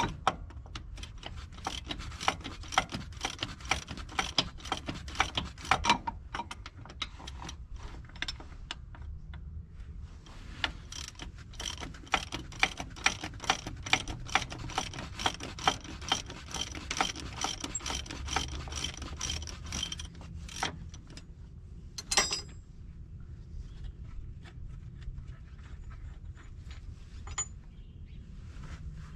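Ratchet wrench clicking rapidly as a bolt is turned, in two long runs with a short pause about nine seconds in. A single metallic knock follows later.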